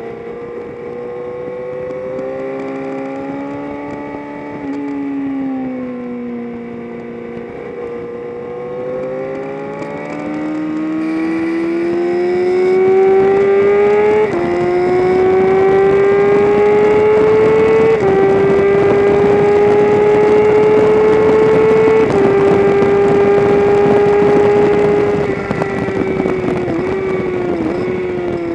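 Engine of a track-day vehicle pulling hard at racing speed, its pitch climbing through the gears with quick upshifts about halfway in and twice more after, then falling with short blips of downshifts near the end.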